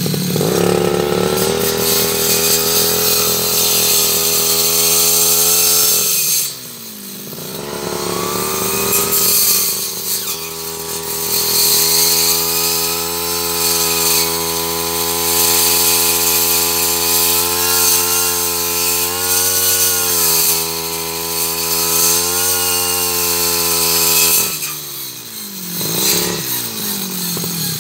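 Two-stroke brush cutter fitted with a grinder-style blade, running at high revs while cutting into a tree. The engine drops off twice, about six seconds in and again near the end, and revs back up each time.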